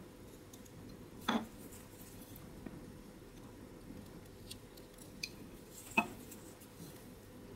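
Small whittling knife paring and scraping little cuts in koa wood, rounding off carved teeth: faint scattered ticks, with two sharper clicks about a second in and about six seconds in.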